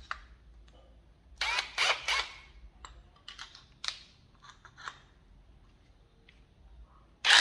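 Handling noise: a few short clattering knocks, scattered single clicks, then a loud knock near the end. No drill is running.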